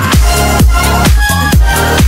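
Electronic dance music with a steady kick drum about twice a second.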